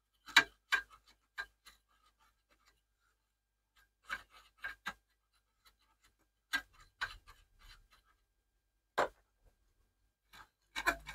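Faint, scattered clicks, taps and brief scrapes, in small clusters a second or two apart, from tools and hands working on the circuit board inside a Microvitec CUB CRT monitor while a trimmer potentiometer is cleaned.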